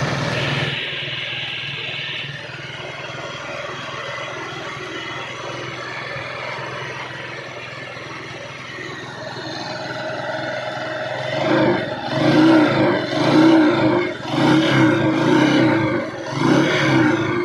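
Yamaha TMAX scooter's parallel-twin engine running steadily, then revved in a series of blips over the last six seconds. The engine is one the mechanic calls noisy, knocking and rattling, alongside its hard starting.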